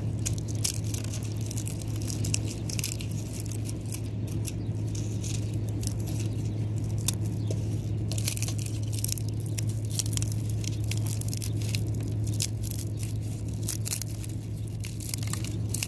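A dried okra pod being broken open and handled by hand, with dry crackling and rustling and many small clicks from the pod and its seeds, over a steady low hum.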